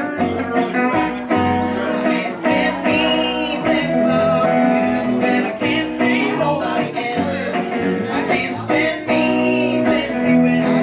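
Live band playing a song, with guitar and singing.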